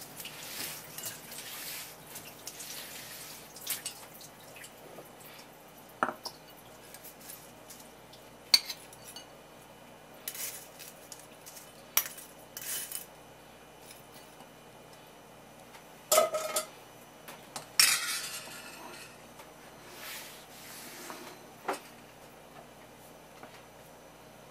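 Scattered clinks and knocks of a stainless mesh strainer and porcelain dishes being handled and set down on a wooden cutting board, one clink ringing briefly about two-thirds through, followed by a short rustle.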